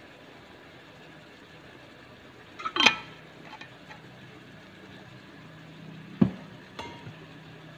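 Kitchen things being handled on a counter: a sharp ringing clink about three seconds in, then a dull knock and a lighter clink near the end, over a low steady hum.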